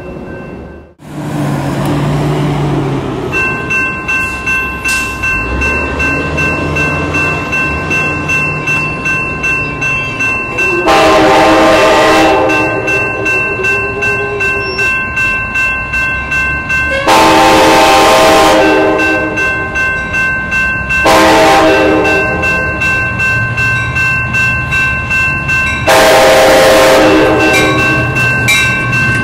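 A railroad grade-crossing bell starts ringing a few seconds in, with a rapid even strike. An Amtrak California passenger train sounds its multi-tone horn in the grade-crossing pattern: two long blasts, a short one, then a long one. Under both runs the low rumble of the train.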